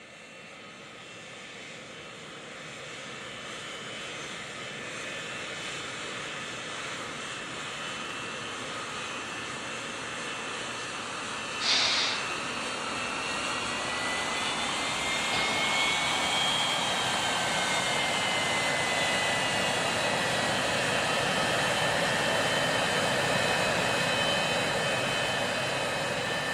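Jet airliner engines running, the noise building slowly over many seconds, with a high turbine whine whose pitch shifts about halfway through. A brief burst of hiss about twelve seconds in is the loudest moment.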